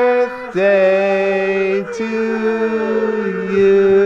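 Several people singing together in long held notes.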